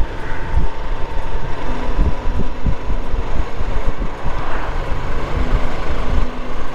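Motorcycle on the move: heavy wind buffeting on the microphone over the engine and road noise.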